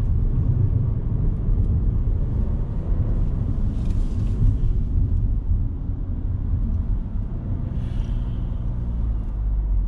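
Steady low rumble inside the cabin of a Nissan Kicks e-POWER crossover driving on a concrete test track.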